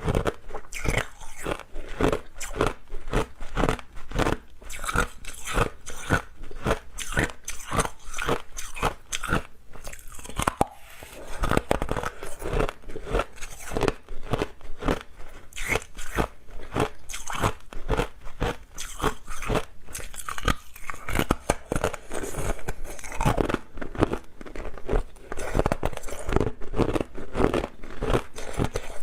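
Hard clear ice being bitten and chewed close to the microphone: a steady run of sharp, crackly crunches, several a second.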